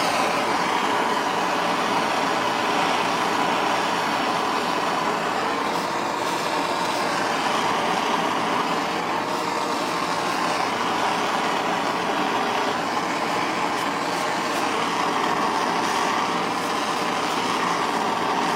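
Handheld gas torch burning steadily with an even hiss, heating the soldered cap seam on a small engine's steel gas tank.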